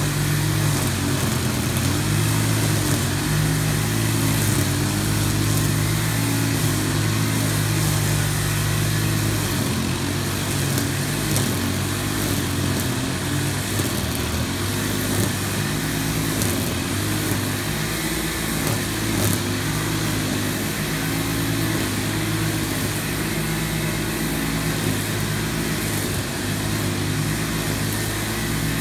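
Small-engine walk-behind lawn mower running steadily while cutting tall grass, its engine note wavering now and then, most in the middle stretch.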